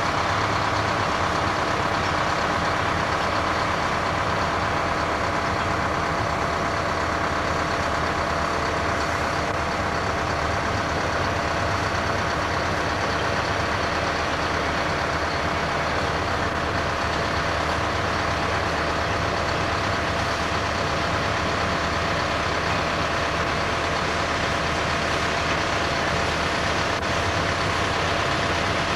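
Diesel engines of wheel tractor-scrapers running steadily as they move and cut earth, a constant drone with no change in pitch or level.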